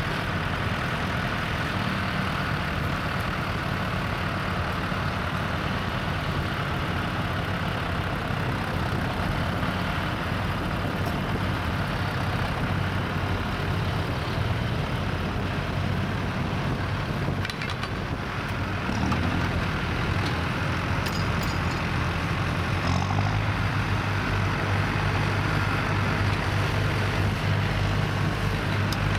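Farm tractor's diesel engine running steadily under load while pulling a mounted reversible plough through stubble. It grows louder from about two-thirds of the way in as the tractor comes closer.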